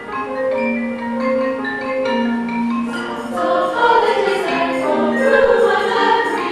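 High school concert band playing a slow piece in held chords, with mallet percussion ringing. The music swells fuller and louder about halfway through.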